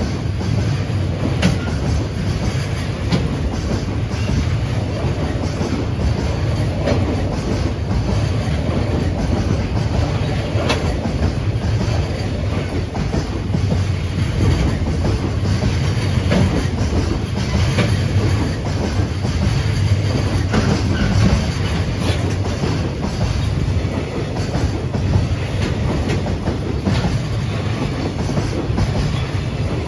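Container freight train running steadily past, its wheels clicking over the rail joints as the wagons go by.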